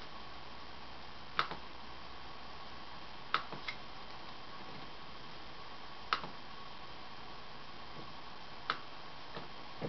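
Sharp single clicks at irregular intervals, about six in all, two of them close together about three and a half seconds in, from a laptop being operated. Under them runs a steady hiss with a faint high tone.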